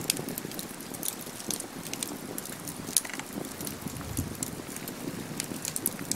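Wood campfire burning: many sharp crackles and pops over a low, steady rustle of flames, with one louder pop about three seconds in.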